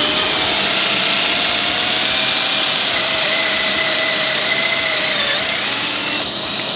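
Wet-and-dry vacuum running with a steady whine, its hose sucking chips at a pocket-hole jig while a cordless drill bores a pocket hole in a timber batten. The whine dips slightly about five seconds in.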